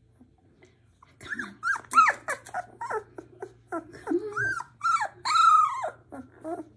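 17-day-old black Labrador retriever puppies whining and squeaking: a rapid string of short high calls, each rising and falling in pitch, starting about a second in.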